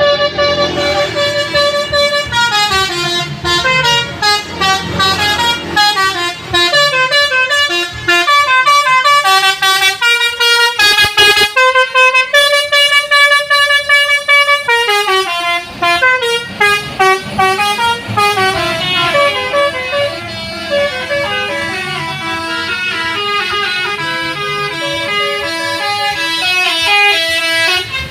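Bus 'basuri' telolet horns playing tunes, the pitch stepping from note to note, with more than one horn sounding at times as the buses answer each other in a horn battle.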